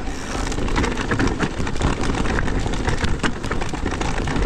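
Cube Stereo Hybrid 160 e-mountain bike being ridden over rough trail, tyres rolling and the bike rattling, with many quick clicks and knocks over a low rumble. The rattle is still there but much less with the RockShox Deluxe Select+ rear shock than it was with the Fox Float X.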